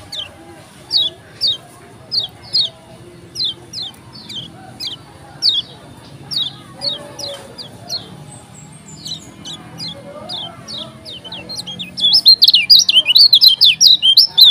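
Kecial kuning (a white-eye) singing: a string of short, high, downward-slurred notes about two a second, breaking into a fast, much louder run of chattering notes near the end.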